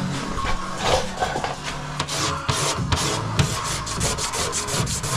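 Razor blade scraping across cured UV body filler on a car panel, shaving off the slimy top layer and knocking down the high spots. Repeated short scraping strokes that get quicker after about three seconds.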